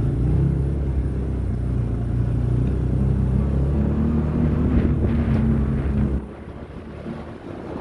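Motor vehicle engine running steadily at low revs, cutting off suddenly about six seconds in.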